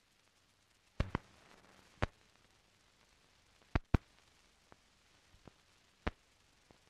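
Surface noise of an old optical film soundtrack before the music starts: faint hiss and low hum broken by a handful of sharp clicks and pops, two of them in quick pairs, typical of dust, scratches and splices on the print.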